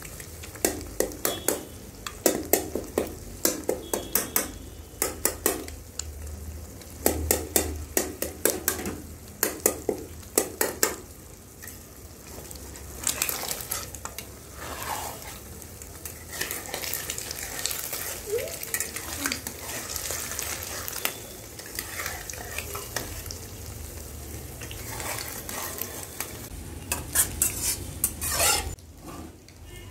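Eggs sizzling in a non-stick kadai while a metal spatula breaks them up against the pan: quick clusters of sharp taps for the first ten seconds or so, then steadier scraping and stirring over the sizzle, with a few harder strokes near the end.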